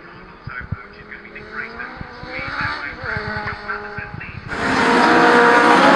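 Racing engines on a circuit, their notes rising and falling as they rev. About four and a half seconds in, the engine sound suddenly becomes much louder and fuller and stays loud.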